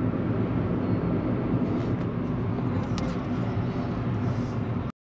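Steady engine and road rumble of a car driving along. It cuts out suddenly for a moment near the end.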